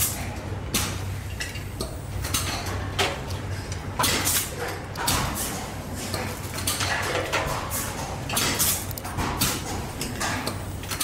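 Machinery clattering: irregular knocks and clacks over a steady low hum.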